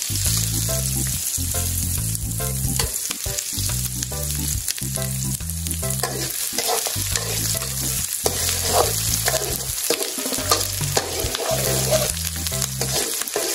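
Diced onion sautéing in hot oil in an aluminium wok, sizzling steadily while a metal spoon stirs and scrapes against the pan. The onion has already turned translucent. A low rumble runs underneath.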